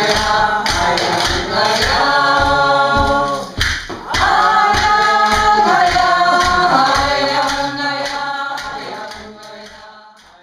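A group of voices singing together over a steady drum beat of about three strokes a second, with a brief break partway through, fading out near the end.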